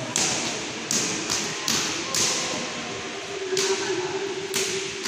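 Judo sparring on a foam mat: about seven sharp, irregular slaps and thuds from bare feet stepping and gi jackets being gripped and yanked, over a steady gym hiss.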